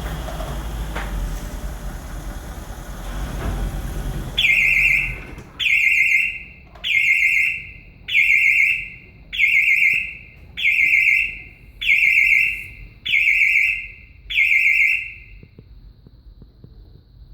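Mercedes-Benz W222's engine running, then cutting out about four seconds in as the Autolis security system's engine immobilizer trips because the driver has not entered the confirmation code. An alarm then sounds nine warbling high beeps, each about a second long and a little over a second apart.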